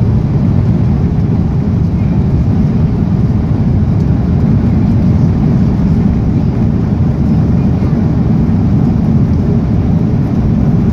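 Steady low rumble inside the cabin of an Airbus A330-300 rolling on the ground after landing.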